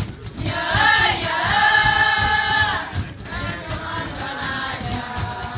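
Batuku chorus of voices singing a long held note in response to the lead singer, from about half a second to three seconds in, then continuing more softly. Underneath runs a steady beat of hands slapping a leather batuku pad.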